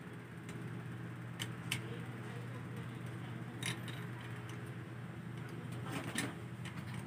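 Plastic and metal parts of a ring light clicking and rattling as they are handled and fitted together: two clicks about a second and a half in, one near the middle, and two close together near the end, over a steady low hum.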